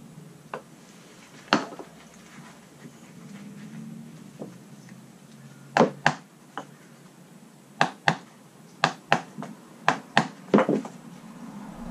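About a dozen sharp knocks and clicks, a few scattered at first and then coming quickly in the second half: hand tools and containers being picked up and set down on a fibreglass jet ski deck.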